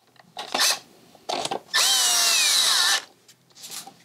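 Cordless screwdriver driving a screw into a motorcycle's plastic side cover: two short bursts, then a longer run of about a second whose high motor whine slowly falls in pitch and wobbles just before it stops.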